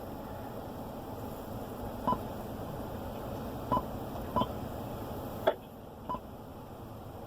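Five short electronic beeps spread over a few seconds, the key-press tones of a touchscreen as it is tapped through the Ring app's event list, over a steady background hiss.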